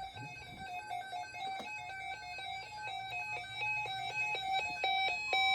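Electronic weather-alert beeping at the start of a tornado watch broadcast: a rapid string of short, buzzy beeps that step slightly up and down in pitch like a little tune, growing louder, with a steady alert tone coming in near the end.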